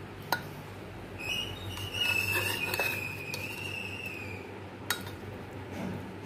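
A metal serving spoon clinks against a metal cooking pot while biryani is turned: sharp clicks near the start and about five seconds in. A thin high squeal runs from about a second in for about three seconds, slowly rising and then falling; it is the loudest sound here.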